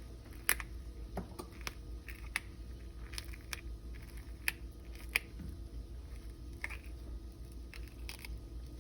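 Scattered light clicks and taps from handling food and utensils while cooking, irregularly spaced, over a steady low hum.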